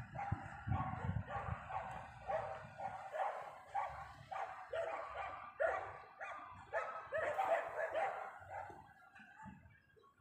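Gulls calling, a quick series of short, downward-bending cries repeated two or three times a second.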